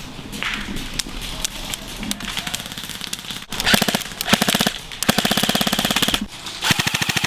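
Airsoft electric M4 rifle firing on full auto: four rapid bursts in the second half, the longest about a second, after scattered single shots from other guns further off.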